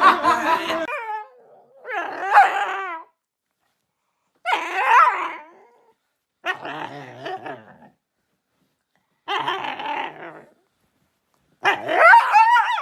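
A dog barking and growling angrily in six separate outbursts, each lasting about a second or more, with pauses between them.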